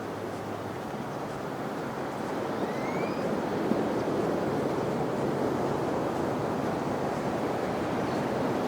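Ocean surf washing onto the beach as a steady rush that swells louder a few seconds in.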